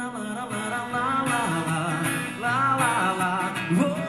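A man singing live into a microphone, accompanied by his own strummed Strinberg acoustic guitar; his voice rises and falls in drawn-out melodic runs.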